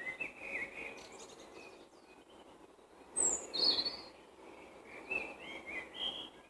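Songbirds singing in spring: short chirpy phrases repeat throughout, and a louder, higher phrase starting with a falling note comes about three seconds in.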